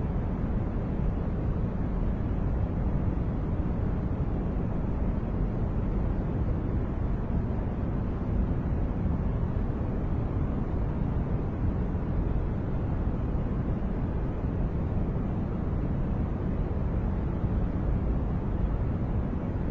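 Steady masking noise for sleep and focus, a deep, even rush heaviest in the low end and thinning toward the top, with no change at all.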